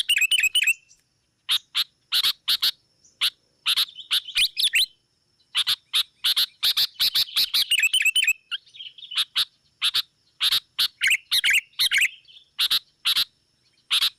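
Sooty-headed bulbuls (kutilang) giving rapid, excited chattering calls: clusters of short, loud notes broken by brief pauses. This kind of noisy calling is used as a pikat lure to draw in rival wild bulbuls. A faint steady high whine runs underneath.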